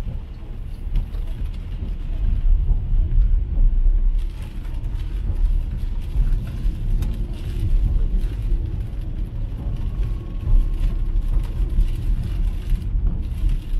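Cabin noise of an MG ZS EV electric car driving on a wet road in rain: a steady low rumble of tyres and road, with the hiss of tyres on water joining about four seconds in.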